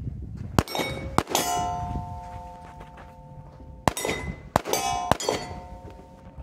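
Five pistol shots, two close together and then three after a pause of over two seconds, each hit followed by struck steel target plates ringing with a sustained metallic ring.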